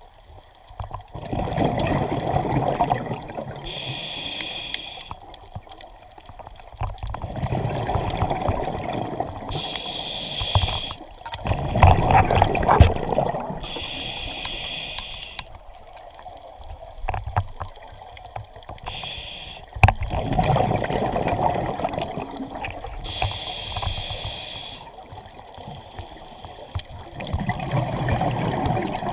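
Scuba diver breathing through an open-circuit regulator underwater: short hissing rushes from the regulator alternate with longer bubbling rumbles of exhaled air, about five breaths in all.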